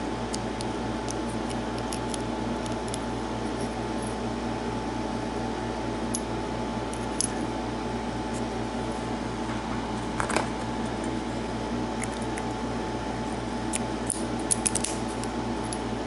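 Steady room hum with a few small metallic clicks and ticks from a brass padlock cylinder being handled as its plug is slid out with a plug follower. There is one click about ten seconds in and a quick cluster of ticks near the end.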